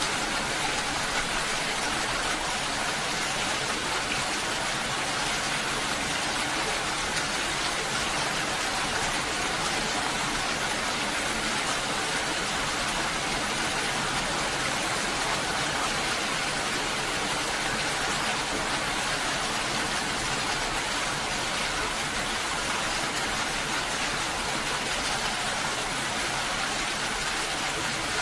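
Steady rain, an even hiss of falling rain with no pauses or changes.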